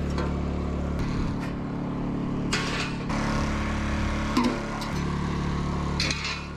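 Small portable Honda generator engine running steadily while a corded reciprocating saw cuts the steel frame. The sound changes abruptly every second or so and carries a few short, sharp metal knocks.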